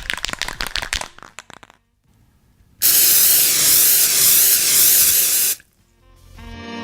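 Compressed-air paint spray gun spraying primer: a loud, steady hiss that starts about three seconds in, lasts close to three seconds and stops abruptly.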